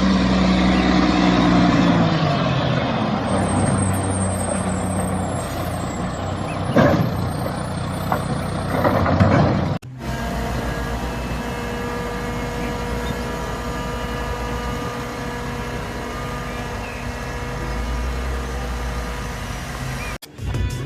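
Truck engine sound in two edited segments: a low running rumble whose pitch falls over the first couple of seconds, then after a sudden cut about ten seconds in, a steadier hum with several held tones.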